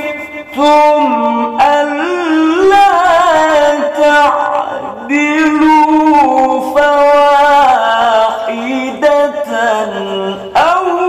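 A man reciting the Quran in melodic tilawah style: long held, ornamented phrases with a brief pause for breath near the start.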